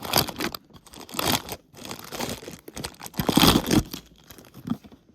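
Puzzle advent calendar packaging being torn open and crinkled by hand, in several irregular crackly rustles, the loudest about three and a half seconds in.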